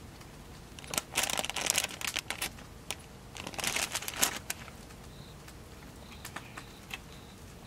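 Two bursts of crinkly rustling and crackling, about a second in and again about three and a half seconds in, as ingredients are handled and piled into a nabe pot, followed by a few light clicks.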